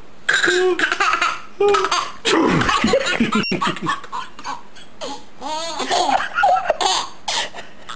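Baby laughing hard, in repeated belly laughs and giggles that come in short bursts.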